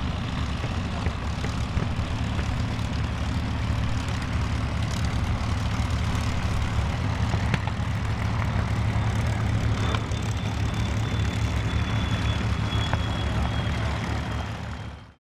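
Packard V-1650 Merlin V-12 engines of P-51D Mustangs running at low power while taxiing, a steady low engine note with propeller noise. It fades out near the end.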